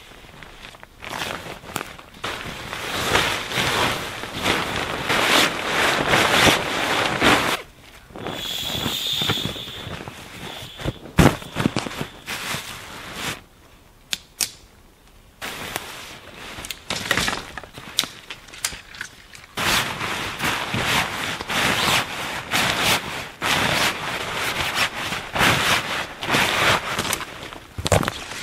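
Nylon tent fabric rustling and swishing in irregular bursts as a dome tent's rainfly and inner tent are pulled off and handled, with a sharp click about eleven seconds in.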